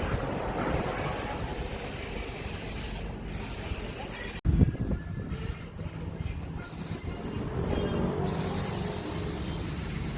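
Air paint spray gun hissing in bursts, starting and stopping several times, over a steady low mechanical running noise. A sudden break about four and a half seconds in is followed by a short loud thump.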